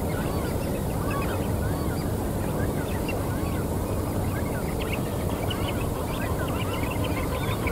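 Many birds calling at once, a dense chatter of short chirps and calls, over a steady low background noise.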